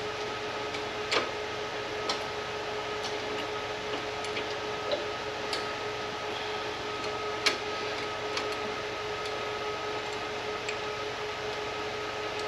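Scattered light clicks and taps, a dozen or so at irregular intervals, from hand work on a reel mower's drive wheel lift bracket and cable, over a steady background hum.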